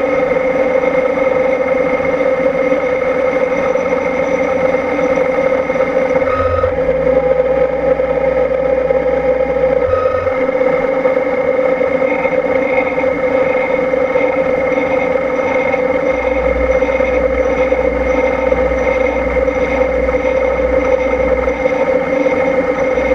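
CNC milling machine spindle running with a small end mill cutting the spiral flutes of a steel tap blank turned on a rotary fourth axis: a steady whine of several tones with cutting noise. A lower hum joins twice, about a quarter of the way in for a few seconds and again past two-thirds, as the axis drives move.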